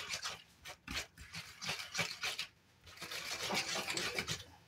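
A fork stirring a yeast, sugar and water mixture in a well of flour, its tines swishing and scraping in quick, irregular strokes with a few brief pauses.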